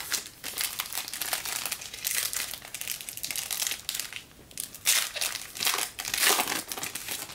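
Wrapper of a 2015 Panini Diamond Kings baseball card pack crinkling as it is handled and opened by hand, in a run of crackles with louder bursts about five and six seconds in.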